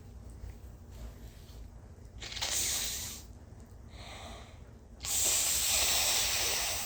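Sharp, hissing inhalations of a sneeze buildup from an irritated, allergic nose. There is one breath of about a second, then a longer, louder one lasting nearly two seconds near the end.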